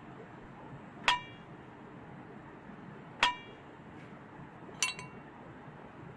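Metal knife and cake server clinking against the cake plate: three sharp clinks with a brief ring, the last a quick double clink.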